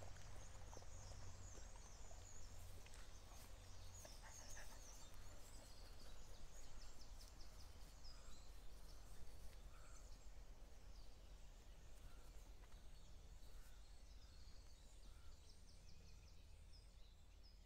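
Faint outdoor ambience: small birds chirping and trilling over a low steady hum.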